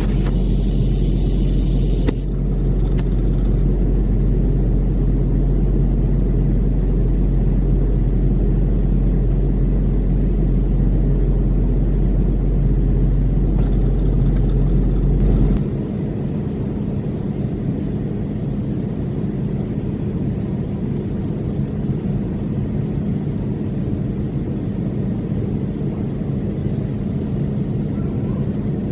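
Loud, steady low mechanical rumble with a constant hum, like a building's ventilation or air-handling machinery. Its deepest part drops away about halfway through.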